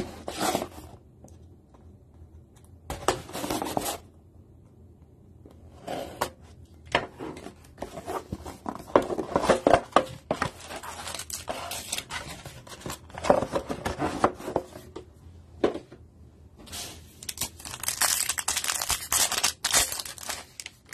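Plastic wrap on a trading-card box being cut with a box cutter and torn off in short rustling bursts, then busy crackling of foil card packs being handled. Near the end a foil pack is ripped open and crinkles loudly for several seconds.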